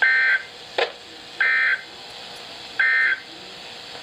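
Emergency Alert System end-of-message data tones: three short, identical, buzzy digital bursts about a second and a half apart over a hiss, marking the end of the alert. A sharp click follows the first burst.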